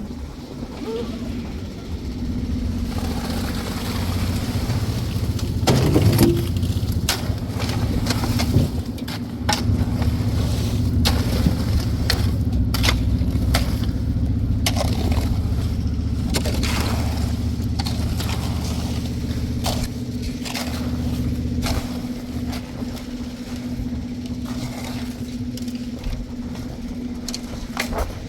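An engine running steadily, with many sharp knocks, scrapes and clatters over it.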